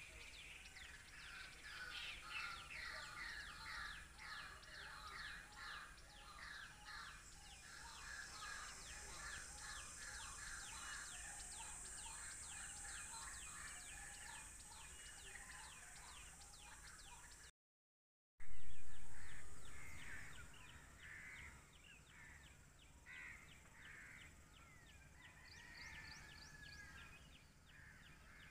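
A chorus of birds calling, many overlapping repeated calls at once. About seventeen seconds in the sound drops out for a moment; a loud rush of noise follows and fades over about two seconds, and the calls then come more sparsely.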